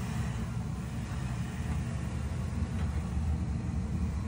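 Oil burner firing on a three-pass oil boiler: a steady low rumble of burner fan and flame, with the boiler running properly.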